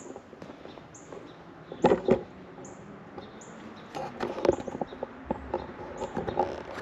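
Footsteps scuffing and knocking on loose dirt, irregular, with a small bird chirping over and over in the background.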